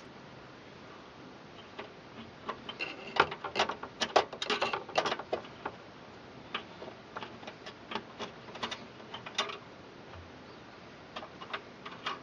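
Irregular clicks and small knocks of computer case hardware being handled during drive installation, in a quick cluster that thins out, then a few more near the end.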